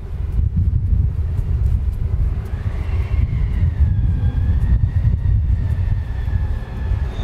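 City street sound: a steady low rumble of traffic, with a high whine that glides up from about a third of the way in and then holds.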